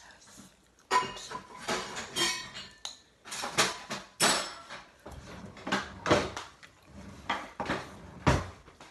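Metal spoon clinking and scraping against a ceramic bowl while eating from it: about a dozen sharp, irregular knocks with a brief ring.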